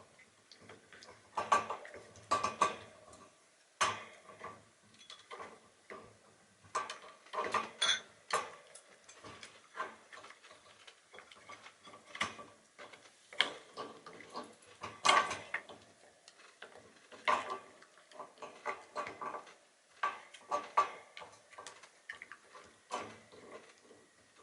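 A Shiba Inu gnawing a hard horse hoof chew: irregular clicks and crunches of teeth on the hoof, some in quick clusters, with short pauses between.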